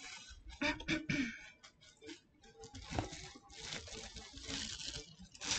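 Plastic bag wrapped around a mannequin head crinkling and rustling as the head is pulled out of a cardboard box, with scattered small knocks and a denser stretch of crackling in the second half.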